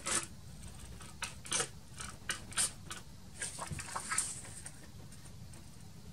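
Sheets of card and paper being handled and laid down on a cutting mat: a string of short rustles and light taps, stopping about four and a half seconds in.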